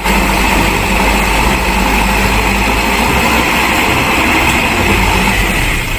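Mitsubishi Fuso dump truck's diesel engine running steadily while its tipper bed is raised.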